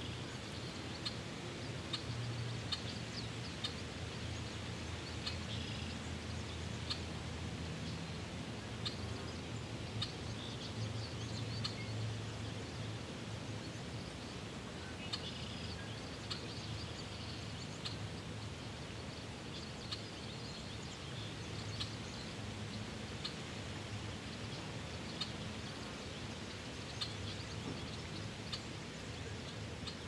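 Short, scattered bird chirps over a steady low background noise.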